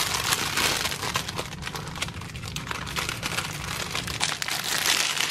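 Clear plastic packaging sleeve crinkling and crackling as a packaged tie is handled and lifted out of a cardboard box.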